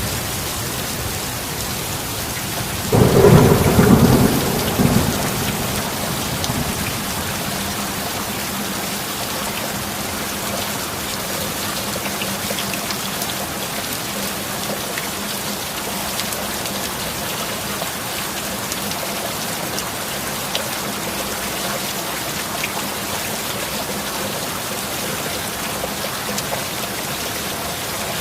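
Steady heavy rain, with a clap of thunder about three seconds in that rumbles for roughly two seconds before the rain carries on alone.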